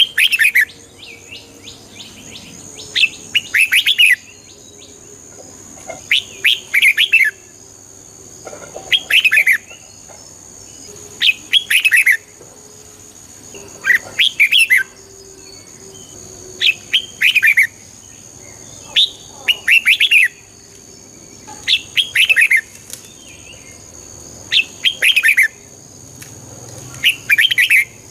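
Red-whiskered bulbul singing short, clear phrases of several quick notes. Each phrase lasts about a second and repeats every two to three seconds, over a faint steady high-pitched tone.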